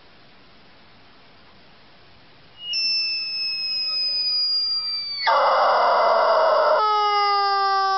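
Rubber squawking chicken toy being squeezed: after a quiet start, a thin high whistle that sags slightly in pitch, then a harsh raspy blast, then a loud steady nasal squawk held for several seconds.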